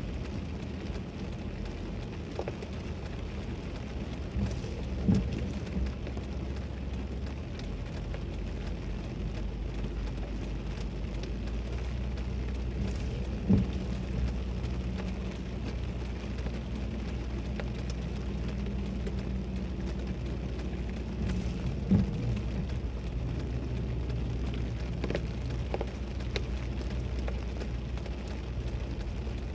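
Rain falling on a stationary Toyota Celsior, heard from inside the cabin as a steady hiss over the low hum of the idling V8. A short knock comes about every eight seconds as the intermittent windshield wipers sweep.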